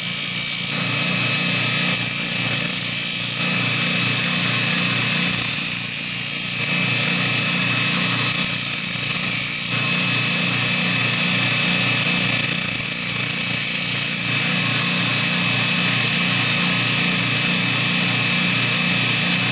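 Baldor 1/2 hp grinder running a 100-grit abrasive belt on a 10-inch expander wheel, with a steel fuller being ground against the belt. The grinding hiss shifts every few seconds over the motor's steady hum.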